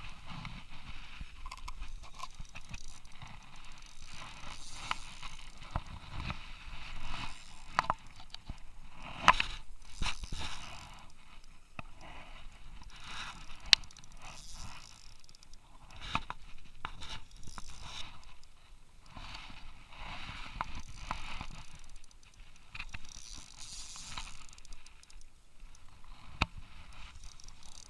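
Handling noises in an inflatable boat: irregular scraping and rustling, with a few sharp clicks, the loudest about halfway through.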